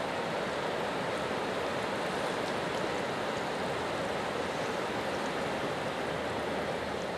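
River water rushing over rapids: a steady, even rush of flowing water.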